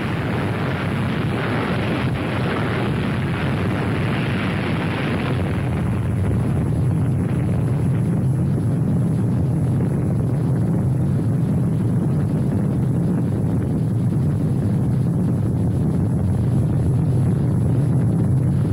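Soundtrack of archival film of a bomb explosion and its rising mushroom cloud: a loud, continuous roar with hiss that fades about five seconds in, leaving a steady deep rumble.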